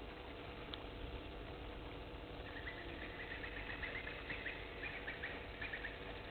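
A run of rapid, short, high chirps from a small animal, starting about two and a half seconds in and lasting about three seconds, over a steady hiss.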